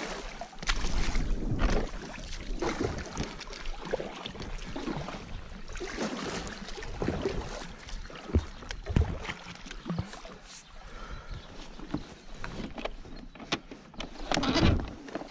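Double-bladed kayak paddle dipping and pulling through calm water, one uneven splashing stroke after another.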